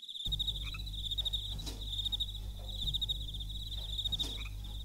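A cricket chirping in a fast, steady pulsing trill over a low background hum, with a couple of faint clicks.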